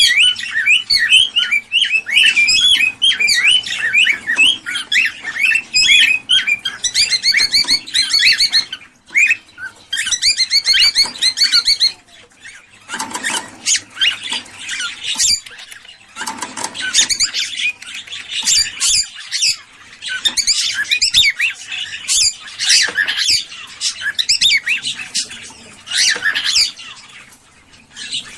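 Cockatiels chattering and calling: a dense run of rapid, high chirps for about the first twelve seconds, then sparser, harsher squawking calls.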